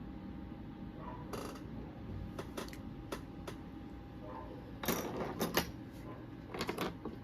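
Small hard objects being handled: scattered clicks and light clatter, with short rustling bursts about five seconds in and again near the end.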